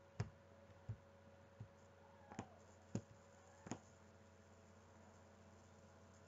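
Near silence: room tone with about six faint, short clicks, unevenly spaced, in the first four seconds.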